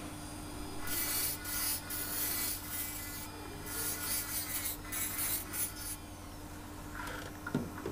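Dental lab micromotor handpiece with a bur grinding down the side of an artificial denture tooth, trimming it to fit. The grinding hiss comes in a series of short strokes from about one to six seconds in, over a steady low hum. A short knock near the end.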